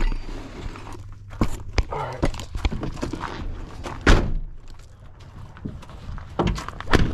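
Scattered knocks and thumps of someone rummaging in a pickup truck's cab and climbing out of it, with a heavy thump about four seconds in and another near the end.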